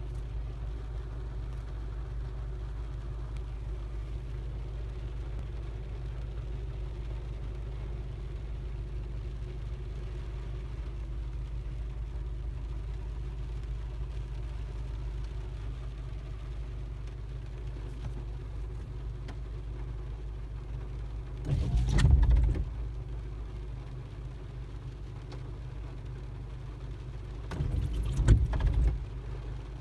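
Windshield wiper blades squeaking across the glass in two sweeps, each lasting about a second, the first about two-thirds of the way through and the second near the end. Under them is the car's steady low drone. The blades are new, and the squeak comes from the glass having been treated with Rain-X water repellent.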